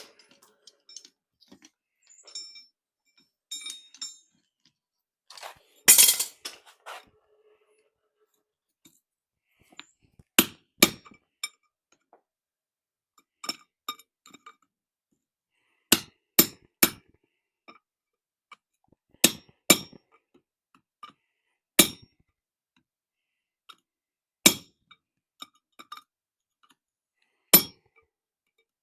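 Hammer striking hot steel on an anvil: spaced single blows and short runs of two or three, each with a bright ring, as light finishing blows on a forged bottle opener. A longer clatter of metal comes about six seconds in.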